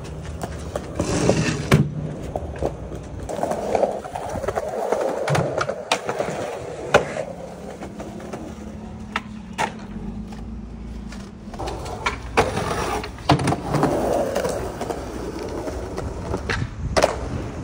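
Skateboard wheels rolling on concrete, with several sharp clacks as the board pops and lands.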